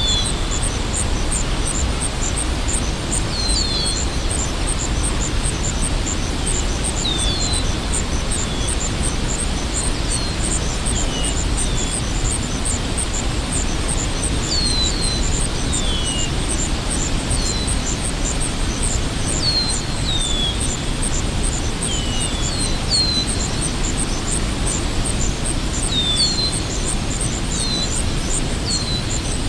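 Waterfall: a steady rush of falling water. Over it, birds give short falling chirps every second or two, with a fast, even, high-pitched pulsing trill running throughout.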